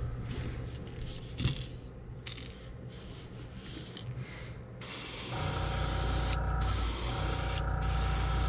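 Airbrush spraying paint in short hissing spurts, then a steady continuous spray from about five seconds in, with a steady low hum joining it at that point.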